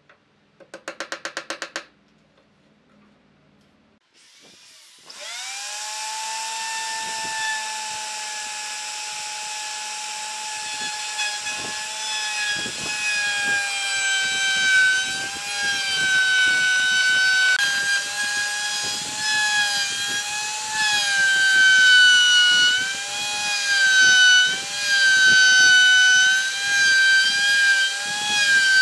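Handheld electric plunge router spinning up with a rising whine about four seconds in, then running at a high pitch that dips and recovers as its straight bit cuts into the wood, with crackling chip noise underneath. A brief rapid rattle comes about a second in, before the motor starts.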